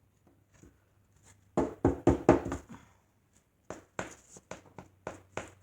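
Knocks and taps from hands handling a broken picture frame and its glass: a quick cluster of sharp knocks about two seconds in, then more scattered taps from about four seconds on.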